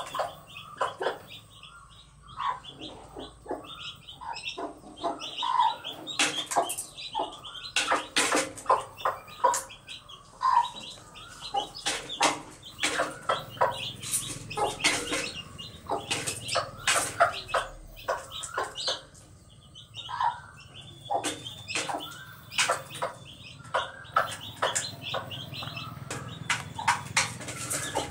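Backyard chickens clucking as they forage, with high peeping chirps from chicks. Many short, sharp rustles and taps come from pecking and scratching in dry leaf litter.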